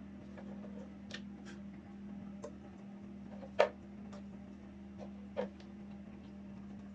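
Irregular light clicks and taps of eggs and plastic incubator trays being handled, one sharper knock about halfway through, over the steady hum of the running egg incubator.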